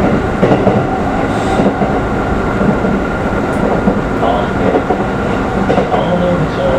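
Keikyu New 1000 series electric train running, heard from inside the passenger car: a steady rumble and rail noise from the wheels and running gear.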